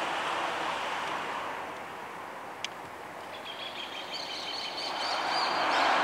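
ALCo RSD16 diesel locomotive approaching slowly at the head of a freight train: a steady rumble and rush that dips a little midway and grows louder near the end as it draws closer.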